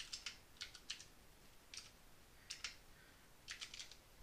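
Faint keystrokes on a computer keyboard, typed in short bursts of a few keys with pauses between.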